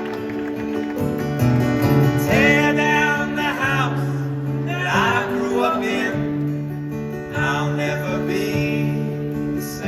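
Live acoustic folk band playing an instrumental passage, with guitar under a wavering melodic lead line.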